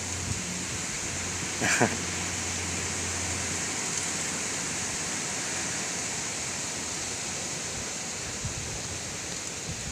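Steady outdoor hiss, strongest in a high-pitched band, with one brief sharp sound a little under two seconds in.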